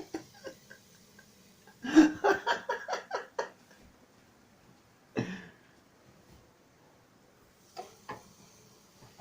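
A person's voice in a quick run of short, evenly spaced bursts about two seconds in, then one single burst a few seconds later and two faint ones near the end.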